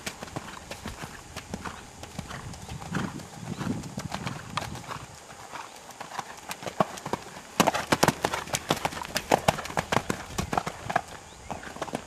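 A horse cantering on a sand arena under a rider: a steady run of hoofbeats, coming thickest and loudest from about seven and a half to ten seconds in.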